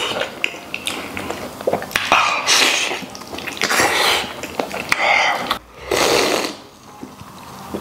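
Loud slurping and chewing of a mouthful of braised beef trotter taken off chopsticks, in several noisy slurps; quieter near the end.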